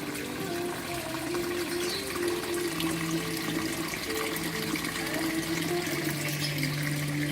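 Running water with a steady splashing flow, under instrumental background music carrying a slow melody with held notes.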